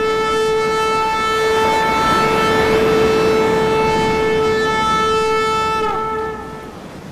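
One long, loud, steady horn-like note rich in overtones, held for about six seconds and sagging in pitch as it cuts off, over a rushing noise.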